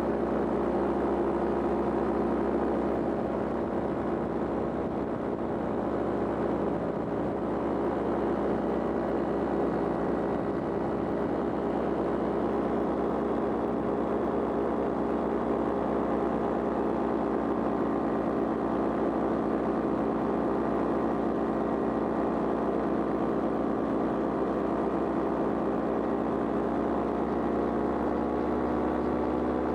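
Powered paraglider's engine and propeller running steadily in flight: an even drone, its pitch edging up slightly near the end.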